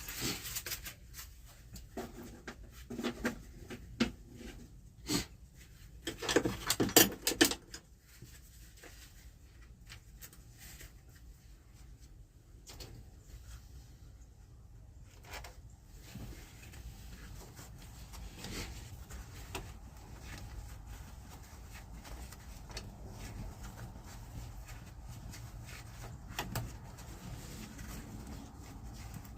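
Hand work on a loader joystick linkage: scattered clicks and knocks of parts and tools being handled, with a cluster of louder knocks about six to seven seconds in, then a faint steady background with only occasional light clicks.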